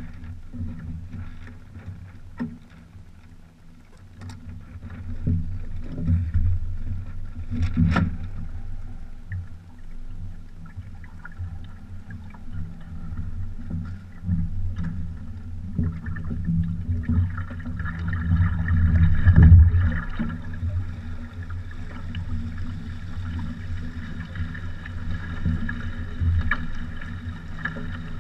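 Water slapping and sloshing against a small trimaran's hull, with a steady low rumble of wind buffeting the microphone and a few knocks of gear on the hull. A broader rushing comes in a little past the middle as the boat gets under way.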